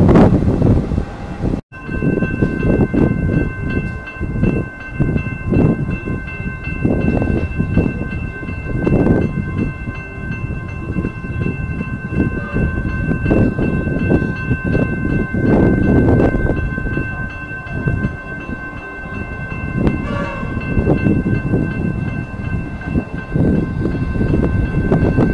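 Level-crossing warning bells ringing steadily, starting just after a sudden cut about two seconds in, as a Comeng electric suburban train approaches. Gusts of wind buffet the microphone throughout.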